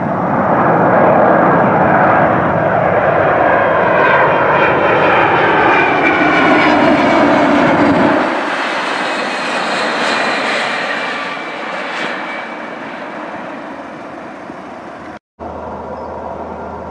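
Airbus A300-600 freighter's two turbofan engines on landing approach, passing close: a loud jet whine with several tones falling in pitch, easing to a quieter steady rumble after about eight seconds, with a brief dropout near the end.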